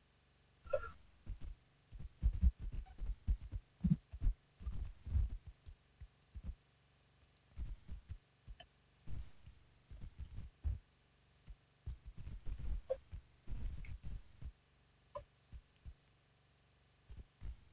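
Wind buffeting an outdoor camera microphone: irregular low rumbling thumps that come and go in gusts. A few faint, short chirps sound over it.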